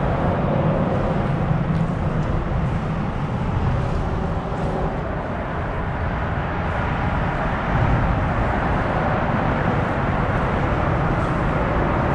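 Steady low rumble of motor traffic on the bridge, unbroken and with no distinct events.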